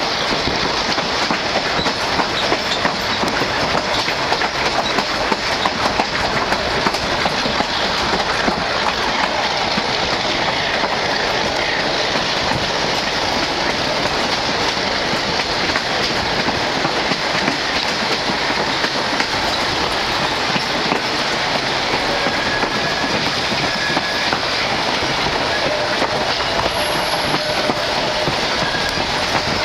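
Passenger train running along the track, heard loud from an open carriage window: a steady rattle and rush of the wheels on the rails with frequent small clicks. In the last several seconds faint squealing tones come in as the train rounds a curve.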